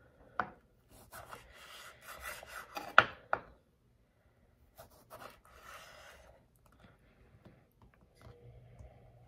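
Santoku knife slicing a kosher dill pickle lengthwise into strips on a countertop: rasping strokes through the pickle, with sharp knocks of the blade on the counter, the loudest about three seconds in.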